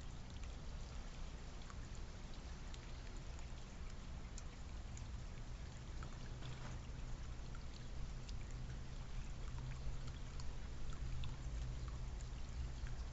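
Steady trickling, pouring water with a low rumble underneath and scattered faint ticks.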